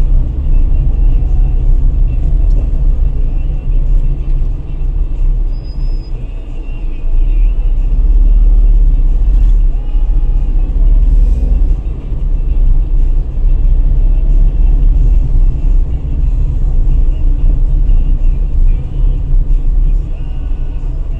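A car driving slowly along city streets: a steady, heavy low rumble of road and engine heard from inside the car.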